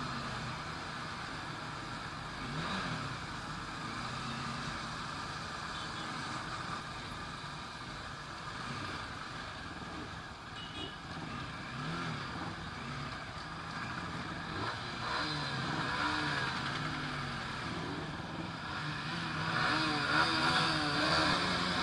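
Motorcycle engines running in a group ride, their pitch rising and falling as throttle is opened and closed, over steady wind and road noise. The sound grows louder near the end.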